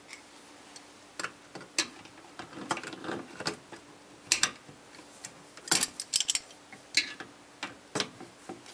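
Irregular metal clicks and taps as Channellock tongue-and-groove pliers are set on and worked against the large metal nut of a sink drain tailpiece, with a tight cluster of sharp clicks about halfway through.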